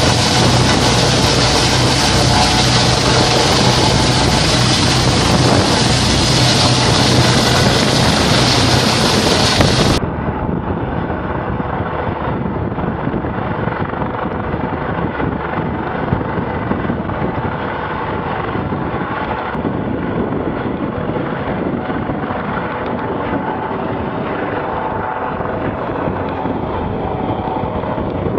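A search-and-rescue helicopter hovering low overhead, its rotor and engines running steadily. About ten seconds in this changes abruptly to wind buffeting the microphone over rushing water and the engine of a rescue boat under way.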